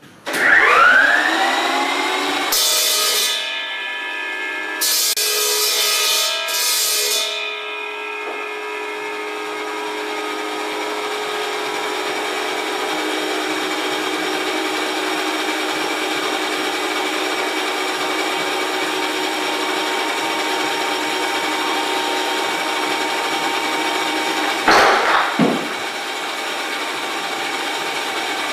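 Circular saw spinning up with a rising whine, then running steadily. Two loud hissing stretches a few seconds in are typical of the blade cutting, and a short loud burst comes near the end.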